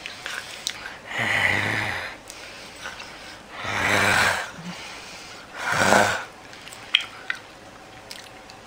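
A man making three loud, rasping throat noises with his mouth wide open, each lasting a second or less, the last one shortest. A single sharp click follows about a second after the last one.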